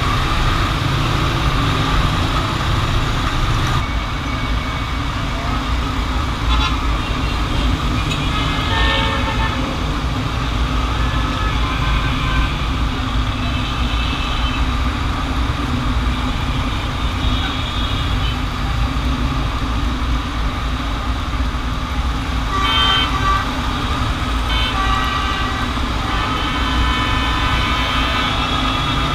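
Busy road traffic: a steady rumble of engines, with horns honking repeatedly from time to time.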